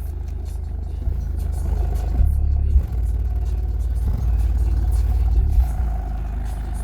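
Subwoofer in a ported enclosure with flared aero ports playing deep bass notes loudly, the low notes changing every second or two. This is a test for port noise.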